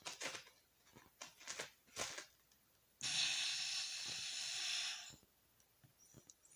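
Sleeping Shiba Inu's breathing noises: a few short snuffling sounds, then a long hissing breath out that starts suddenly about three seconds in and lasts about two seconds.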